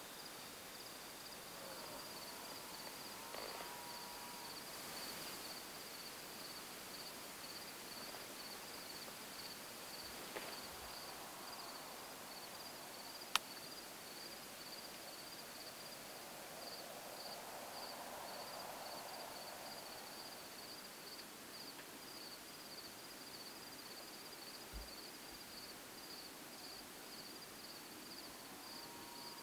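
Quiet evening outdoor ambience with insects chirping in a steady, high, even pulsing. A single sharp click comes about halfway through.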